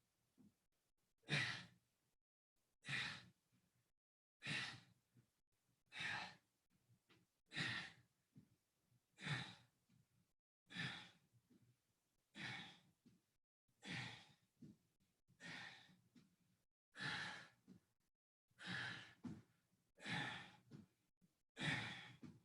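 Heavy, forceful exhaled breaths from someone exercising hard, about fourteen in a steady rhythm, one every second and a half, in time with the repetitions.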